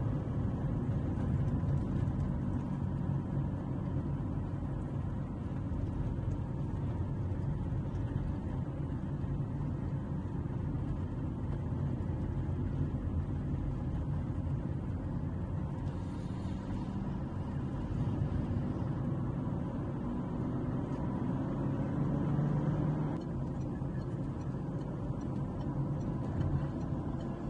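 Steady road noise from inside a moving car's cabin: engine and tyre rumble at cruising speed, slightly louder about three-quarters of the way through.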